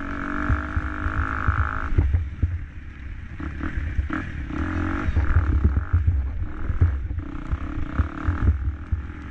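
KTM 250 SX-F motocross bike's four-stroke single-cylinder engine held at steady high revs, then the throttle chopping on and off about two seconds in. Heavy wind rumble on the microphone runs underneath.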